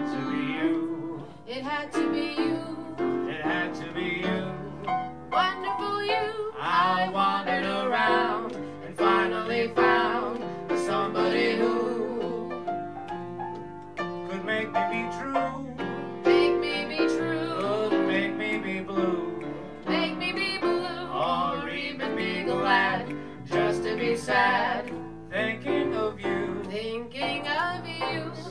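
Jazz piano accompaniment with wordless vocal lines sung over it by a male and female duo, with much vibrato.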